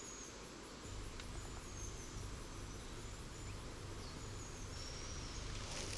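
Faint outdoor nature ambience: a low, steady rumble with a few thin, high-pitched chirps.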